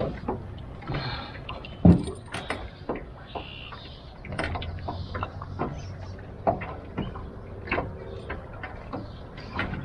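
Irregular clicks and knocks of long-nose pliers and a fish gripper working a lure out of a northern pike's mouth against a metal boat, with one loud knock about two seconds in.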